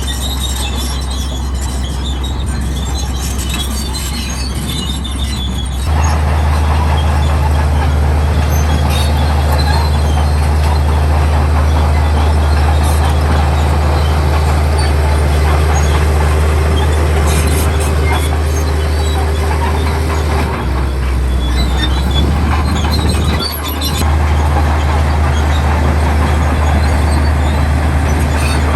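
Crawler bulldozer, a Komatsu D65E, working: its diesel engine runs with a steady low drone while its steel tracks squeal and clank. The engine gets louder about six seconds in and dips briefly twice near the end.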